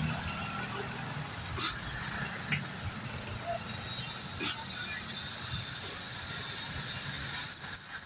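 Street traffic with vehicle engines running, and a short, high-pitched squeal that rises in pitch near the end.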